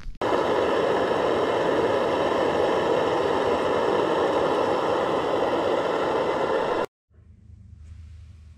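Lake trout fillets frying in a pan on a camp stove: a steady, loud hiss that cuts off abruptly about seven seconds in, leaving only a faint low hum.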